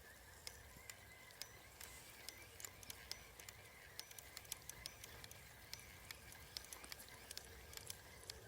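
Near silence: faint outdoor ambience with scattered light clicks and a faint steady high-pitched drone.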